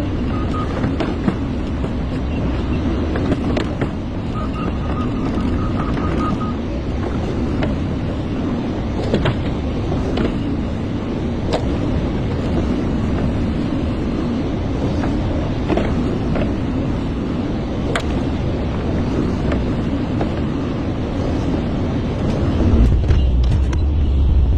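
Hyundai excavator's diesel engine running steadily as the machine works, with scattered sharp knocks and clanks. Near the end the engine gets louder and deeper, as under heavier load.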